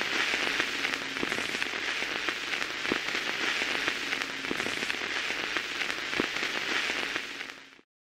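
Steady crackling hiss, dense with small clicks like rain on a surface, fading out just before the end.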